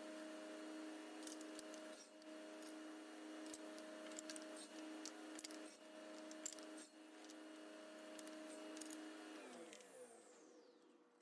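Table saw running steadily, with scattered light ticks and knocks, while ripping a shallow channel in the walnut box sides. About nine and a half seconds in it is switched off, and its pitch falls away as the blade spins down.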